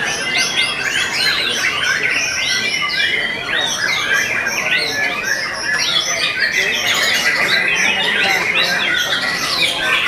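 Many caged white-rumped shamas (murai batu) singing at once: a dense, loud tangle of overlapping whistles and rapid chattering phrases that never lets up.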